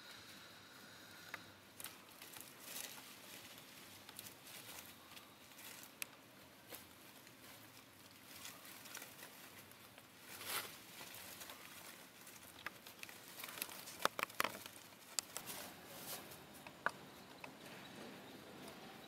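Faint rustling and light crackling in dry leaf litter, broken by scattered sharp clicks, with a quick run of louder clicks about three-quarters of the way through.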